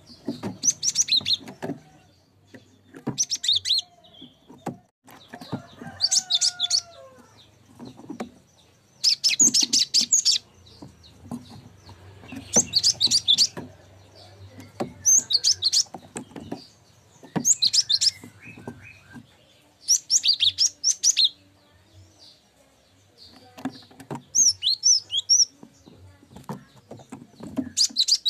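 Cinereous tit (gelatik batu) calling: bursts of high, rapid chirps about a second long, repeated every couple of seconds, with a gap of about two seconds late on.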